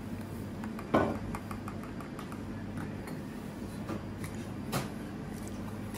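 Crisp fried cannoli shell crunching as it is bitten and chewed, with one loud crunch about a second in followed by small crackles, over a steady low hum.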